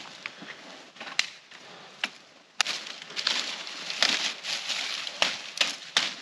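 Dry leaves rustling and twigs cracking on a leaf-covered forest floor as a branch is handled and dragged through them, with several sharp snaps.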